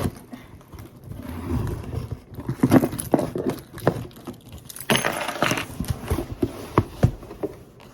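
Handling of a cardboard shoe box: a string of irregular knocks and taps with bursts of rustling, the loudest rustle about five seconds in.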